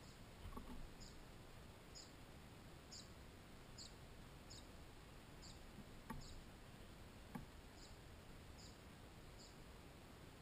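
Faint high chirps repeated at an even pace, a little faster than one a second, over a quiet background. Two light clicks come past the middle.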